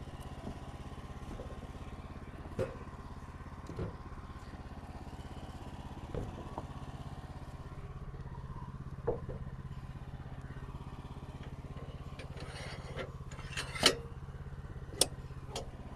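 Small engine running steadily at an even idle. Scattered knocks and clacks sound over it, busiest and loudest near the end, typical of boards being handled on the mill.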